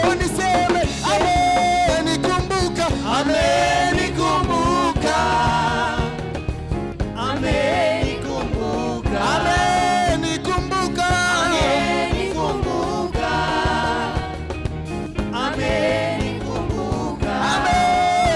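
Live gospel praise music: voices singing a melody over a band with steady bass and drums keeping a regular beat.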